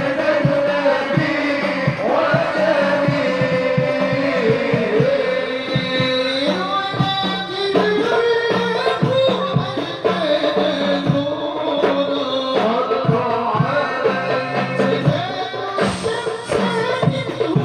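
Sholawat devotional song sung by a group of voices over a steady beat of hand drums.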